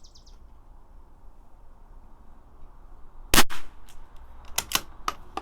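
A single shot from a CZ 457 bolt-action rifle firing .22 LR match ammunition, about three and a half seconds in, followed by several sharp clicks.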